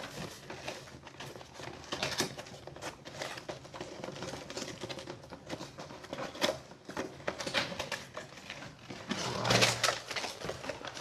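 Keyboard packaging being opened and handled: irregular clicks, taps and rustling, with a louder rustle about nine seconds in.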